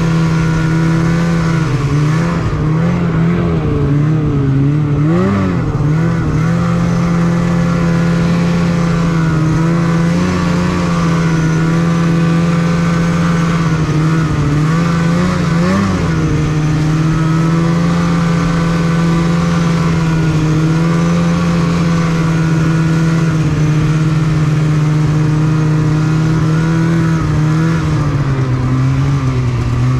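Snowmobile engine running steadily at trail-riding speed. Its pitch swings up and down briefly twice, about four seconds in and again about fifteen seconds in, as the throttle is eased and reapplied, and it drops a little near the end.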